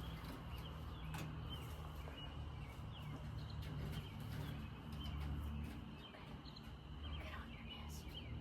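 Chickens making short chirps and soft calls, many of them, over a steady low hum, with a few faint knocks.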